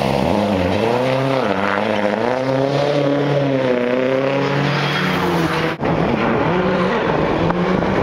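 Ford Focus WRC rally car's turbocharged four-cylinder engine revving hard, its note rising and falling repeatedly through gear changes. The sound breaks off abruptly about three-quarters of the way through, and after that the engine note is steadier.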